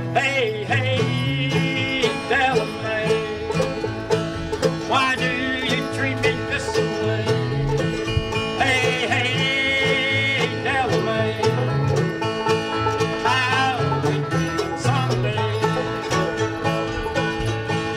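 Bluegrass string band playing: banjo picking over guitar and upright bass.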